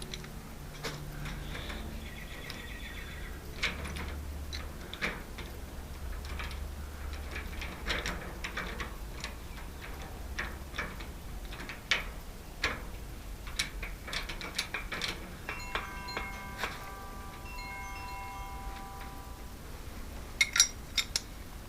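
Small metal lock parts and screws clicking and tapping as they are handled. About three-quarters of the way through, a metal piece rings with several clear tones for about four seconds, then fades.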